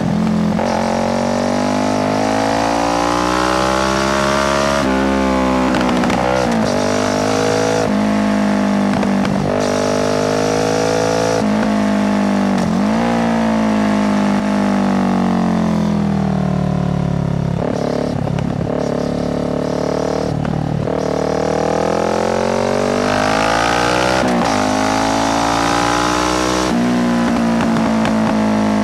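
2018 Kawasaki Z650's parallel-twin engine through an Ixil full exhaust with no dB killer, on the move: revs climb in pitch, drop sharply at each gear change and climb again, with longer falls in pitch as it slows.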